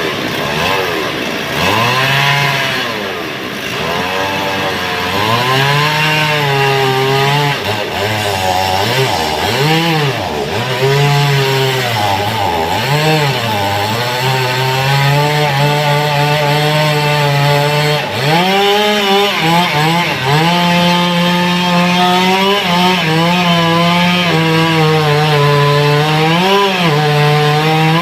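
Chainsaw cutting wood, its engine revving and dropping in pitch again and again as the chain bites, then holding a higher, steadier pitch through the second half.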